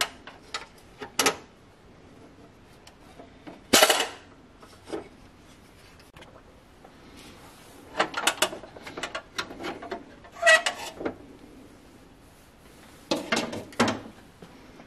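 Intermittent clatter and knocks of hard parts being handled, in short groups of sharp clicks every few seconds with quiet gaps between.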